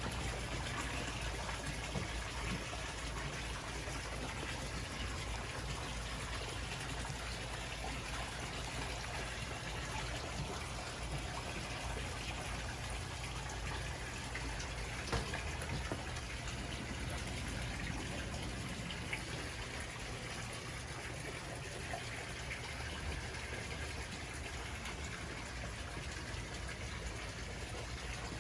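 Steady trickle and splash of running water flowing into a koi pond.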